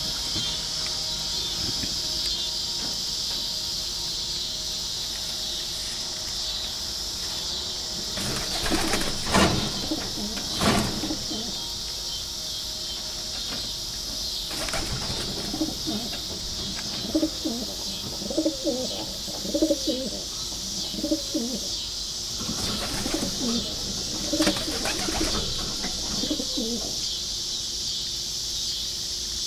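Homing pigeons cooing in a loft, in wavering low calls that come again and again through the second half. There are short bursts of wing flapping about nine seconds in and again a little past the twenty-second mark. A steady high insect-like chirring runs underneath.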